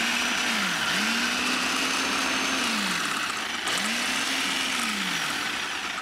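Countertop food processor motor whirring as it pulses a chunky chickpea, carrot and red pepper mixture. Its pitch swells and sinks with each pulse, and it cuts off at the end.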